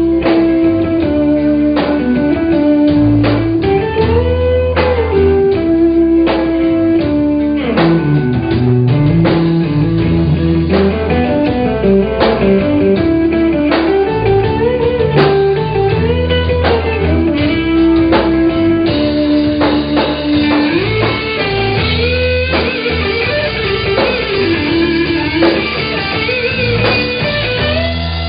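Live blues-rock band playing an instrumental break without vocals. An electric guitar lead with bending notes plays over bass and a steady drum beat.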